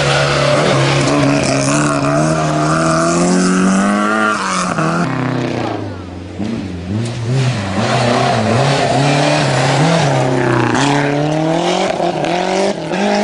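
Rally car engines revving hard on a gravel stage, the pitch swinging up and down with throttle and gear changes. There is a short lull about halfway through, then another car comes through revving.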